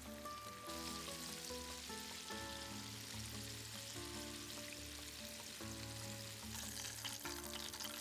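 Food sizzling steadily as it fries, over soft background music with sustained melodic notes and a bass line.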